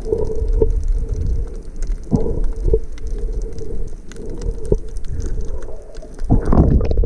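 Muffled, low rumbling of water sloshing and gurgling around a swimmer, with a few sharp knocks.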